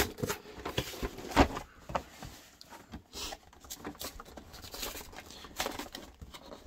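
Cardboard packaging being handled: a paper seal peeling and tearing off a box, then flat-packed cardboard sliding and tapping on a tabletop. There are scattered short knocks and scrapes, clearest about a second and a half in and again near the end.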